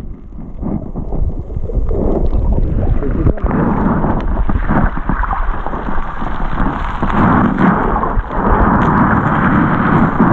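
Shallow seawater heard through a submerged camera's housing: a loud, muffled rumble and churning of water stirred by a wading child's legs close by, growing louder about a second in, with a few knocks.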